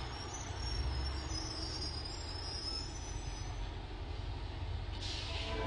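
A steady mechanical rumble with high squealing over it, and a short hiss about five seconds in.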